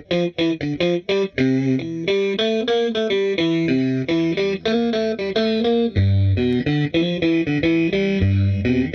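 Electric guitar played through a Poison Noises Seesaw V2 pitch-shifter pedal. Short, choppy picked notes for about the first second and a half, then a connected run of notes stepping up and down, about four a second.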